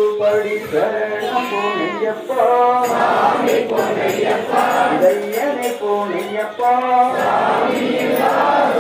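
A crowd of devotees, mostly men, chanting and singing devotional chants together. Their voices rise and fall in long, drawn-out phrases.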